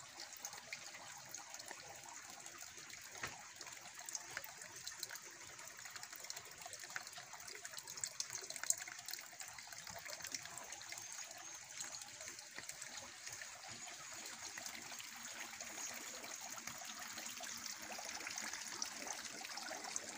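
Water running into a small stone pool, giving a steady, faint trickling splash.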